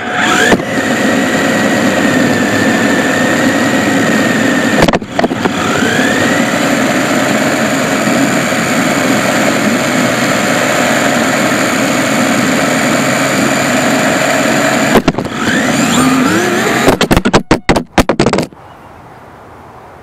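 WLtoys K989 RC drift car's small electric motor and gears whining at speed, with tyre noise on asphalt. The whine rises in pitch as the car accelerates and drops out briefly twice. Near the end a quick run of knocks as the car tumbles onto its side, then the motor stops.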